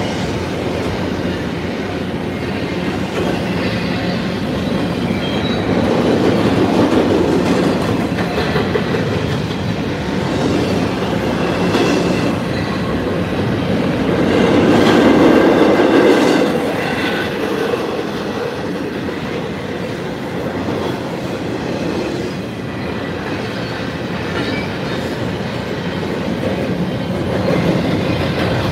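Freight train cars rolling on the rails, a continuous sound of wheels on track that swells about halfway through, with a faint high wheel squeal.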